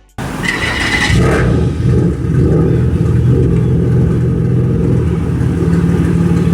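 Car engine starting and idling. A brief high whine at the start gives way to a steady, loud low rumble.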